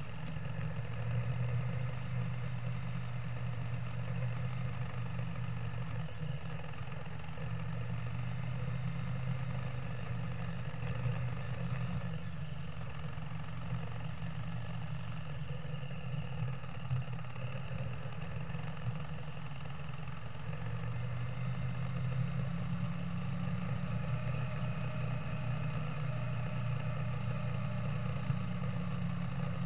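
Yamaha Virago XV535's air-cooled V-twin engine running steadily while the motorcycle is under way, with small changes in engine speed.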